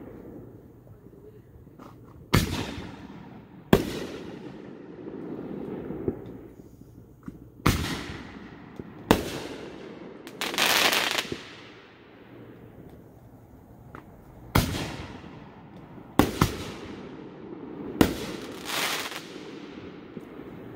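Aerial fireworks shells bursting: about eight sharp bangs at uneven intervals, each trailed by a rolling echo, with two longer hissing bursts, one about halfway through and one near the end.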